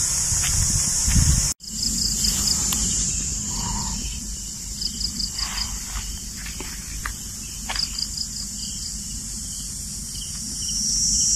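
A chorus of cicadas in tropical forest, a steady high-pitched buzz. It cuts out briefly about a second and a half in and swells near the end. A few short chirps and a low rumble run underneath.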